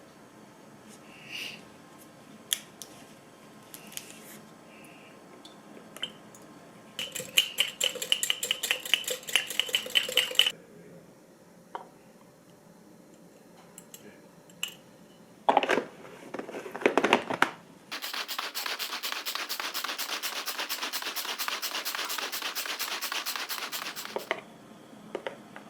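Kitchen utensil sounds: scattered clicks and knocks, with two stretches of fast, even rhythmic rattling, the first with a steady tone in it and the second lasting about six seconds.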